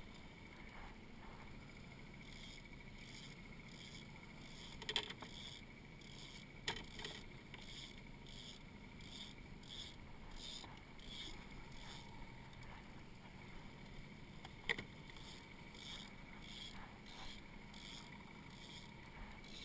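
Quiet small fishing boat on the water: a faint steady hum under soft, regular swishes a bit under twice a second. Three sharp knocks against the boat, the loudest sounds, come about five, seven and fifteen seconds in.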